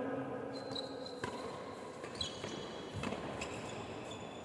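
Badminton rally: several sharp racket strikes on the shuttlecock and footfalls on the court, with short high shoe squeaks, over a steady background hum.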